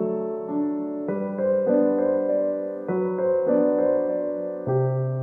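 Background music: a gentle electric piano playing slow sustained chords that change every second or so.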